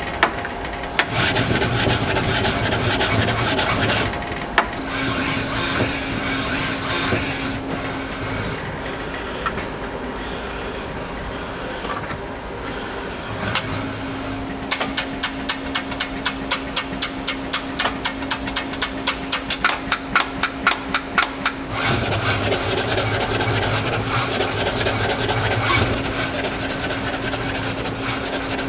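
Adept SCARA robot arm running through its movements, its motors giving a steady mechanical hum and whine that shifts as the arm starts and stops. About halfway through comes a rapid string of clicks, roughly five a second, lasting several seconds.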